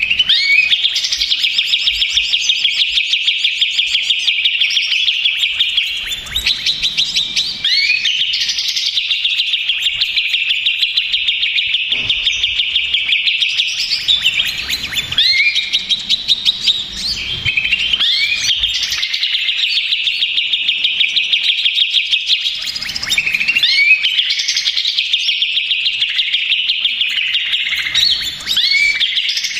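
Cucak ijo (green leafbird) singing a loud, fast chattering song in unbroken phrases several seconds long, separated by short rising whistled sweeps. This is an agitated, noisy (ribut) full song of the kind played as a pancingan to provoke other leafbirds into singing.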